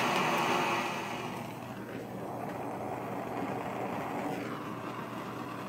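Handheld gas torch lit with a click, then its flame hissing steadily, louder for about the first second, as it is passed over freshly poured epoxy resin to pop surface bubbles.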